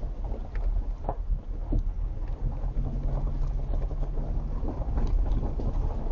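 A vehicle driving slowly on an unpaved road: a steady low rumble and engine hum, with scattered short knocks and rattles from bumps in the road.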